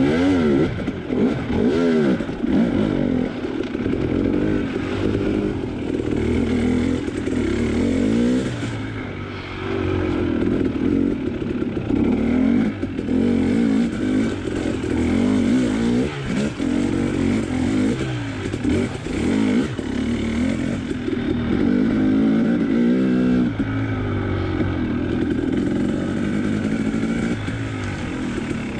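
Dirt bike engine revving up and falling back again and again as it is ridden hard over a rocky, rooty trail, with scattered knocks from the bike hitting rocks.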